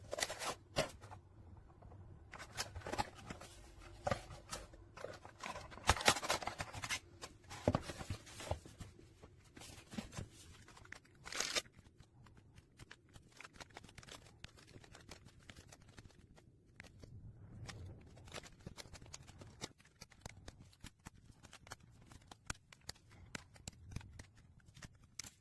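Small plastic parts and packaging being handled: irregular light clicks and rustling, busiest about six and eleven seconds in.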